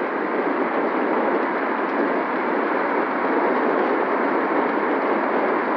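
Steady rushing noise of wind buffeting a moving camera's microphone, mixed with road and traffic noise, with no engine note standing out.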